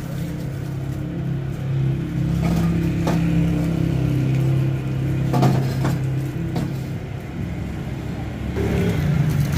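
An engine or motor running steadily with a low hum that swells and eases a few times. A few sharp metal knocks come from a stainless steel table being handled and set down.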